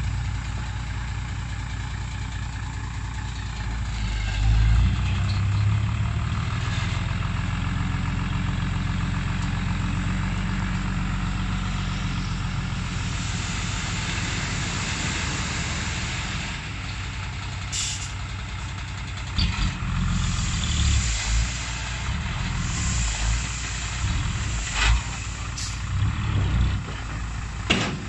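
Hino Ranger six-wheel dump truck's diesel engine running steadily to drive the hydraulic hoist as the tipper bed rises and the sand load tips out. The engine picks up about four seconds in. Uneven low thuds and a few brief hisses follow in the second half.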